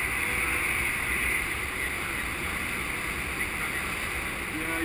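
Steady wind noise rushing over a GoPro's microphone in paragliding flight, an even hiss with a low rumble beneath it.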